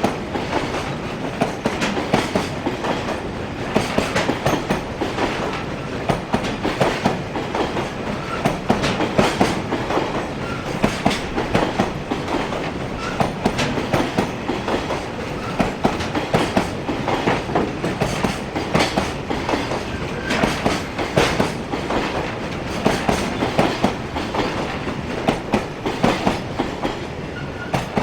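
Container freight train's wagons rolling past at speed, wheels clattering steadily over the rail joints in a continuous rhythm.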